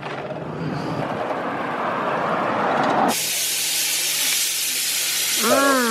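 A rushing noise that slowly swells, then, after a sudden cut about three seconds in, hanger steak sizzling in a hot pan: a bright, steady hiss.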